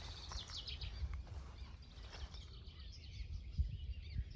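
Small birds chirping and twittering over a steady low rumble, with one short thud about three and a half seconds in.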